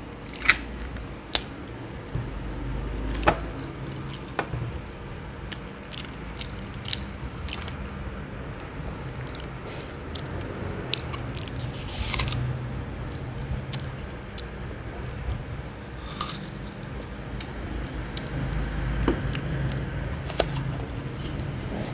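A crisp apple being bitten and chewed close to the microphone: sharp crunches scattered throughout, the loudest in the first few seconds, between stretches of wet chewing.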